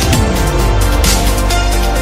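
Electronic dance music with a heavy sustained bass, a pitch sweep falling through the first second, and a steady beat.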